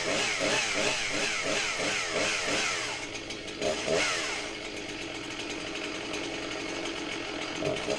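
Husqvarna 261 two-stroke chainsaw engine running, its pitch rising and falling a few times a second for the first few seconds, then settling into steadier, lower running. The engine bogs on the bottom end, a sign of a lean low-speed mixture that is then richened.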